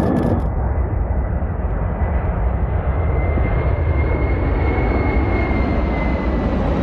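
Aircraft engines running with a steady low rumble, and a thin whine that slowly rises and then falls through the middle of the sound.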